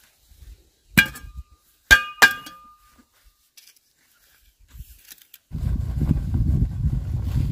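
Hard objects knocked together in three sharp clinks, each with a brief ringing tone, the last two close together. A low rumbling noise starts about two thirds of the way in and continues.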